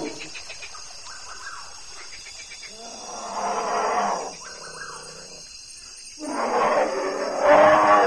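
Brown bear growling: two long growls, one about three seconds in and a louder one from about six seconds in.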